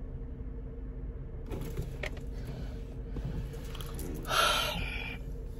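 A woman lets out a loud, breathy sigh about four seconds in, after a few seconds of soft rustling, over a steady low hum in a car cabin.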